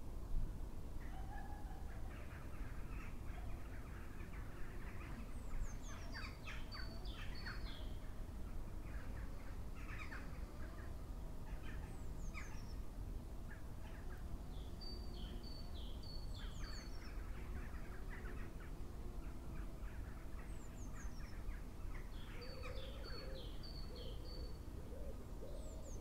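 Woodland birdsong: several small birds calling, with high falling chirps and quick runs of repeated high notes, over a steady low rumble. Lower, wavering calls join near the end.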